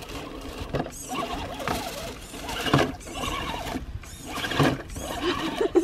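Electric motor and geartrain of a Remo Hobby 1093-ST 1/10 scale RC crawler whining in short throttle spurts, the pitch gliding up and down, with a few knocks of the tyres on creek rocks.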